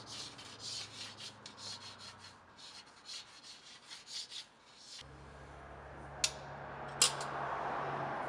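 White marking stick scratching across a steel workbench in quick, irregular strokes as an outline is drawn. About five seconds in this gives way to a steady low hum and hiss, with two sharp metallic clicks.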